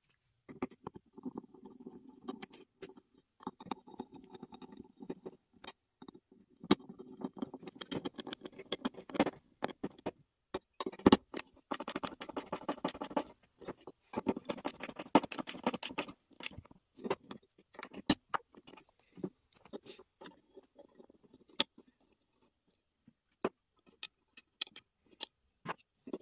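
Small cordless electric screwdriver whirring in short bursts as it drives screws into a Lucas A115 alternator's end bracket, with small metallic clicks and taps between runs. After about 16 seconds only scattered clicks and taps remain.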